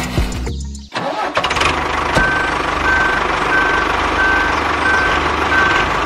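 A vehicle engine running steadily from about a second in. From about two seconds in, a short beep repeats evenly, about one and a half times a second.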